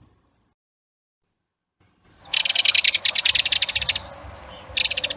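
Bird call played as a sound effect: a fast, rattling chatter in two bursts, starting about two seconds in after a silence.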